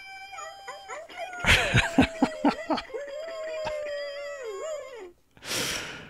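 Toy dog guitar in its special mode, playing electronic dog howls and yelps. A held howl, then a run of short yelping notes and strums, then a long wavering howl that sinks away. A short breathy rush follows near the end.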